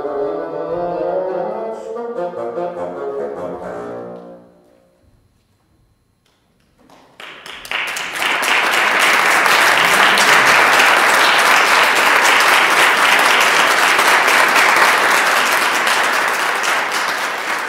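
Solo bassoon playing the closing notes of a piece, dying away about four seconds in. After a short silence an audience applauds, louder than the bassoon.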